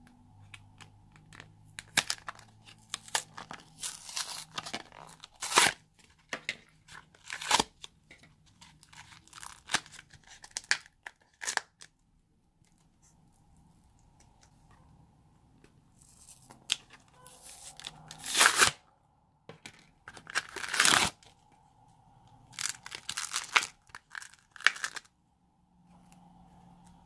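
Foam-bead slime (floam) being pressed and popped out of thin plastic tubs: crinkling plastic and crackling, crunching foam beads in irregular bunches, with a quiet few seconds midway.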